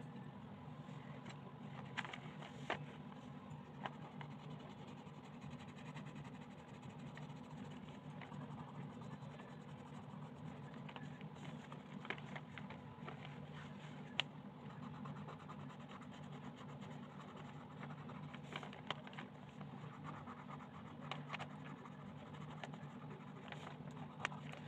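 Coloured pencil scratching softly across paper as a page is coloured in, with a few sharp light clicks along the way. A steady low hum sits underneath.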